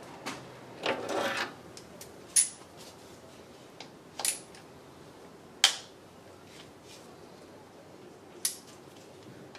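Hand tools clinking against metal under a car: a ratchet with extension and socket being handled and fitted onto the bolts of an automatic transmission oil pan. There is a short rustling scrape about a second in, then a few sharp, separate metallic clicks.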